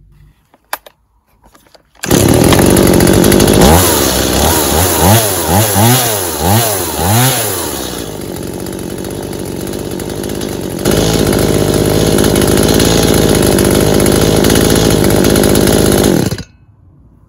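Stihl MS170 two-stroke chainsaw running with its new cylinder and piston. It is revved up and down about five times, runs lower and quieter for a few seconds, then holds a steady high speed and cuts off suddenly.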